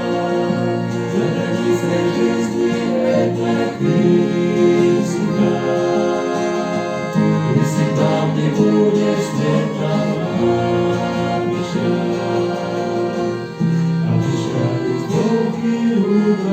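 Christian song music: sustained chords that change every few seconds, with voices singing.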